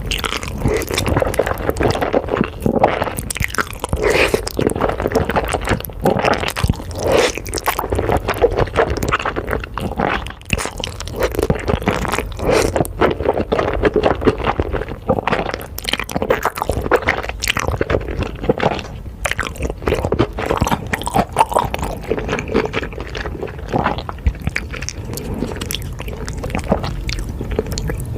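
Close-miked chewing and biting of crunchy, wet food, with dense irregular crunches and squishy smacks throughout.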